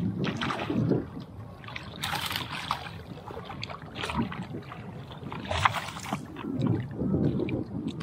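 Hooked peacock bass thrashing at the water's surface, several short splashes.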